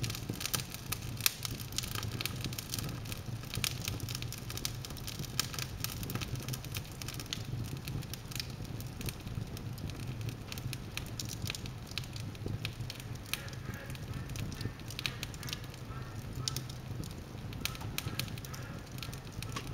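Wood logs burning in an open fireplace, crackling with frequent sharp pops and snaps over a steady low background. The pops are densest in the first few seconds, then come more sparsely.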